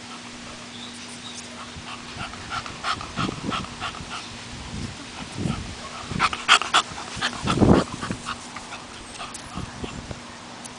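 English bulldog panting in short, quick breaths, with a louder, lower noise about seven and a half seconds in.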